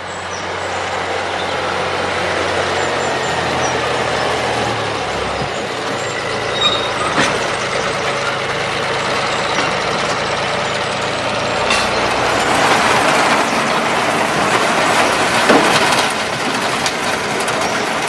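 Farm tractor engine running as it pulls a trailer loaded with hay bales, drawing nearer over the first couple of seconds.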